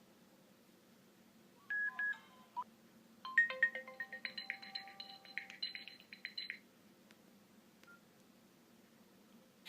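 Nokia N96 ringtone playing through the phone's speaker. A couple of short electronic notes come about two seconds in, then a rapid run of short high notes for about three seconds, which stops well before the end.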